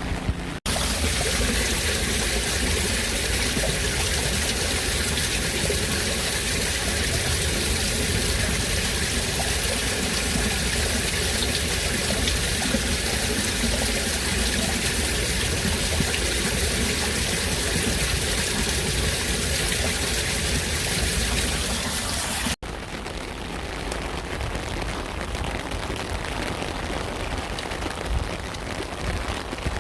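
Recordings of falling rain joined by abrupt cuts. About half a second in, the sound switches to a louder, even hissing rush of heavy rain and running water. About 22 seconds in, it cuts back to a quieter, crackling patter of rain.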